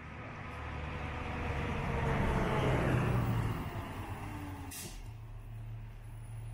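A motor vehicle passes by, its rumble swelling to a peak about three seconds in and fading with a falling pitch. A sharp click follows, then a steady low hum.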